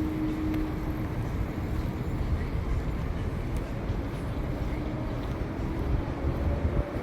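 Steady low rumble of outdoor background noise, with a faint hum that fades out about a second in.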